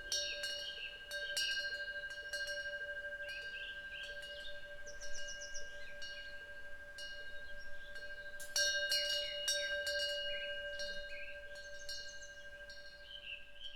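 Korean temple wind bell (pungggyeong) ringing, its clapper striking several times in the first two seconds and again in a louder cluster a little past halfway, each strike leaving long ringing tones that slowly fade. Small birds chirp throughout.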